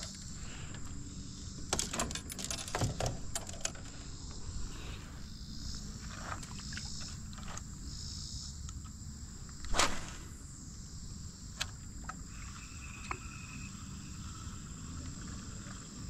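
Insects chirring steadily in the background, with a cluster of clicks and knocks about two to four seconds in and one sharp, louder noise about ten seconds in.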